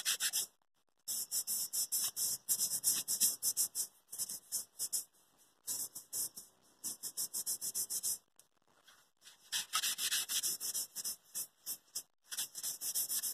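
A scouring pad scrubbing the soleplate of a Philips steam iron in quick back-and-forth strokes, about four or five a second: a scratchy rubbing that stops briefly twice, the second time for about a second. The soleplate is being scoured clean of grime.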